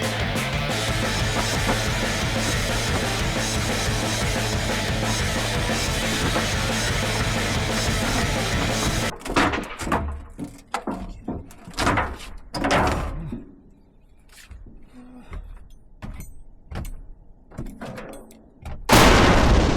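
Background rock music with a steady beat for about nine seconds. The music then drops out and scattered knocks and rustles follow, with a loud sudden burst near the end.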